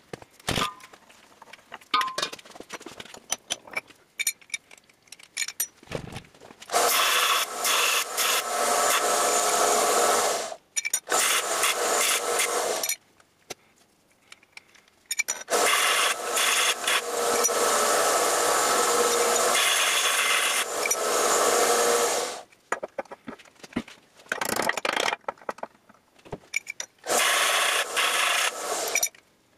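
Small bench belt sander grinding a steel pipe, in four loud passes lasting about four, two, seven and two seconds, with quiet gaps between them. Scattered clicks of handling the metal parts come before the first pass.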